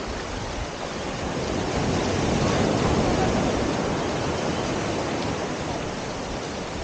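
Ocean surf: a wave breaking and washing up the beach, the rush swelling to a peak about three seconds in and then slowly fading.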